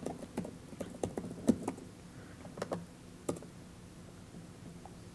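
Typing on a laptop keyboard: irregular keystrokes for about three seconds, then they mostly stop. A low steady hum runs underneath.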